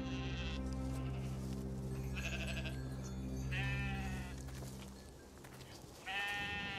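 Three bleats from livestock, the last near the end, over a soft held chord of background music that fades out about five seconds in.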